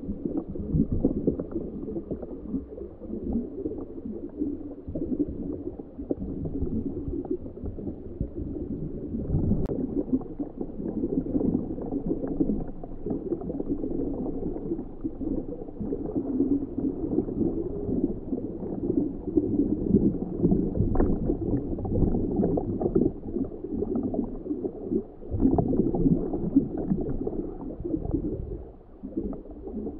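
Muffled, irregular underwater gurgling and rumbling picked up by the camera sealed inside a homebuilt ROV during a dive, swelling and fading without a steady tone.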